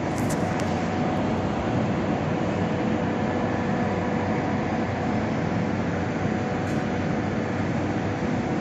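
A steady mechanical hum under an even rushing noise, unchanging throughout.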